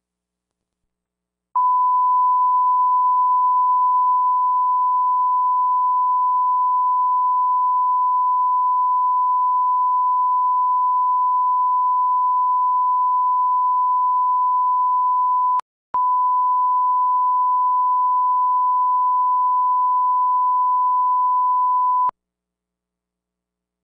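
Steady 1 kHz reference tone, the line-up tone that runs with colour bars at the head of a broadcast tape for setting audio levels. It starts about a second and a half in, drops out for a split second about fourteen seconds later, then resumes for about six more seconds and stops.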